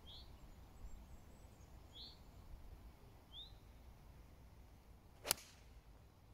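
Golf iron striking the ball: a single sharp click about five seconds in, the loudest sound. Before it a bird gives three short, rising chirps.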